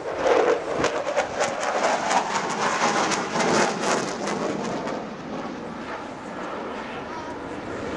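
Fighter jet flying a fast display pass overhead, its jet engine noise crackling loudly for the first few seconds, then easing off after about five seconds as it moves away.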